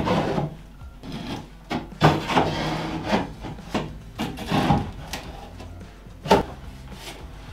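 A white sink being worked down into a cut-out in a plywood countertop: it scrapes and rubs against the wood edge, with a few knocks, the sharpest about six seconds in.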